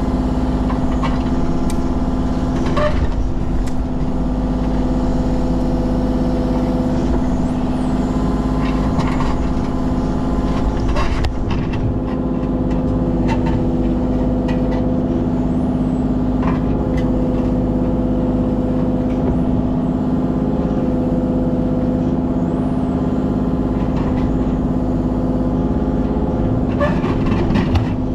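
Kubota KX033 mini excavator's diesel engine running steadily, with a few short knocks now and then.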